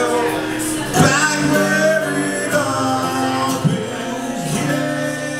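A man singing with a strummed acoustic guitar in a live unplugged rock performance, with a hard strum about a second in.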